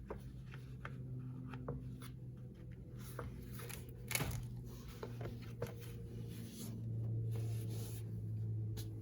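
Notebook and paper being handled: light rustling and small clicks, with one louder tap about four seconds in, over a steady low hum.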